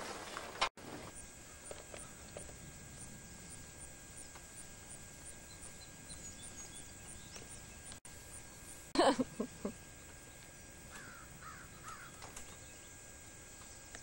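A bird calling: a short run of harsh caws about nine seconds in, with fainter chirps a couple of seconds later over a quiet outdoor background.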